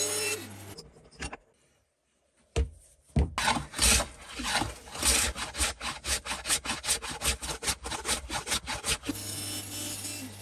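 A steel hand-plane part rubbed hard back and forth by hand, a rasping stroke about four times a second. A bandsaw hums briefly at the start and starts running again near the end.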